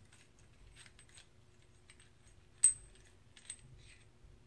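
Faint, scattered small metal clicks of a socket driver working the needle bolt inside an aluminium carburetor slide, with one sharp, ringing metal tink about two and a half seconds in.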